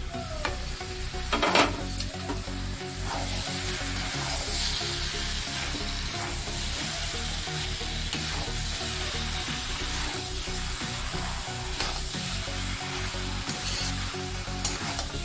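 Raw tripe and intestines sizzling in hot oil and masala in a large aluminium kadhai, stirred and scraped with a metal spatula; a sharp clatter about a second and a half in.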